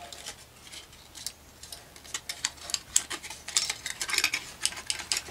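Light clicks and taps of a small wooden keychain with a metal ring and clip being turned over in the hands, the clicks coming thicker in the second half.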